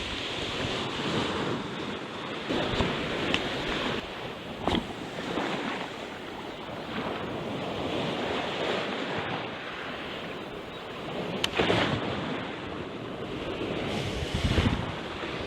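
Sea waves washing against the shore with wind buffeting the microphone, broken by a few brief knocks.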